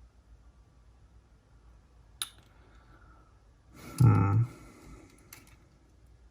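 Sharp clicks of small parts being handled as a cassette Walkman is taken apart, with a short, louder, low pitched sound about four seconds in.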